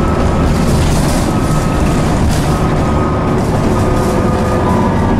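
Transbus Trident's Cummins ISCe six-cylinder diesel and Voith D851.3E automatic gearbox pulling the bus along, heard from the lower deck: a steady low engine rumble with a thin whine above it.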